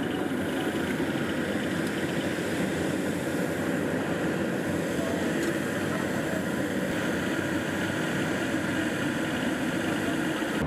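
Steady, unbroken engine drone with a rushing noise over it.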